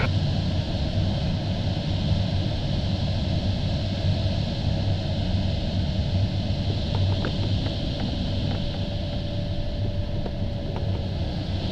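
Steady rush of airflow over an LS-4a glider in flight, heard inside the cockpit, with a low rumble under it and a few faint clicks midway.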